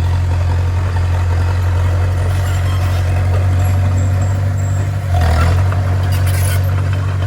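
Bulldozer's diesel engine running with a steady low drone, briefly surging about five seconds in.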